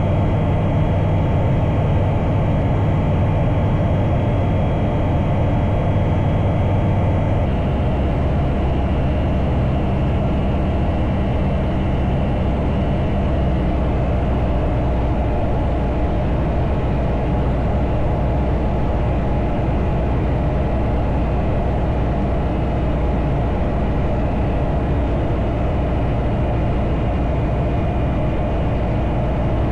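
Bristell Classic light aircraft's engine and propeller droning steadily in cruise, heard from the cabin. The low hum changes pitch slightly about seven seconds in.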